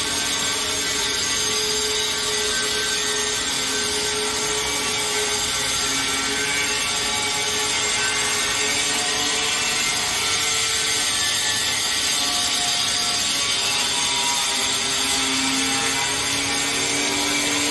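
Airport luggage trolley rolling over the tiled terminal floor: a steady rattling, grinding wheel noise with faint wavering squeaks.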